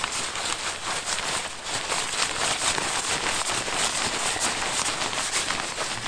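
Steady crackling and rustling of an inflatable sleeping pad's fabric as it is rolled up tightly to squeeze the air out.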